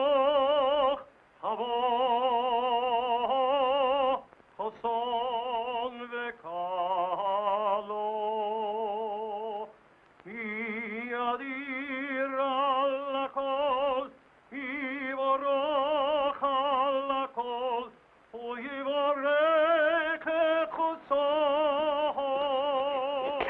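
A cantor's solo male voice chanting Jewish liturgical song, unaccompanied, in long held phrases with a wide vibrato, broken by short pauses for breath.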